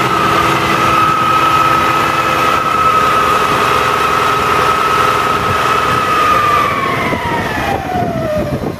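Cummins ISM inline-six diesel engine running in an open, stripped truck chassis, with a strong steady high whine over the engine note. Over the last two seconds the whine drops in pitch as engine speed falls.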